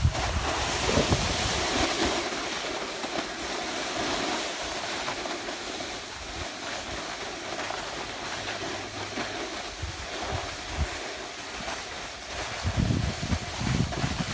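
Wind buffeting the microphone over a steady hiss of sliding across snow, with heavier low gusts near the end.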